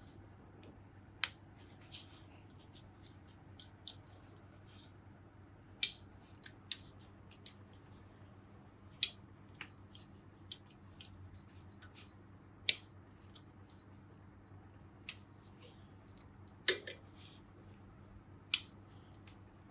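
Hand tools working on the engine of a Yamaha TTR230 dirt bike: a series of separate sharp clicks at irregular intervals of a second or more, over a steady low hum.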